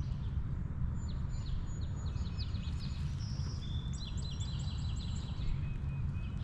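A songbird sings a rapid series of chirps and trills for a few seconds, over a steady low rumble of wind on the microphone.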